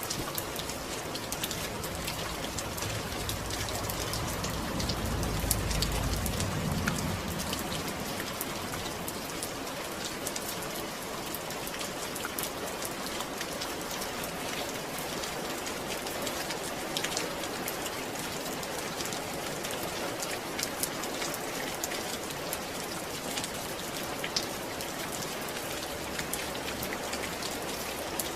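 Steady rain falling, with many individual drops ticking through an even hiss. About five seconds in, a low rumble swells and fades again.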